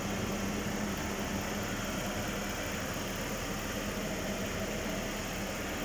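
Full-size GM SUV's V8 engine idling steadily with the A/C on, a constant whir with a low hum, heard up close at the front grille.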